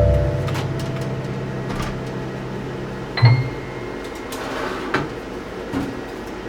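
Microwave oven humming steadily. About three seconds in it stops with a thump and a short electronic beep, followed by a few light clicks.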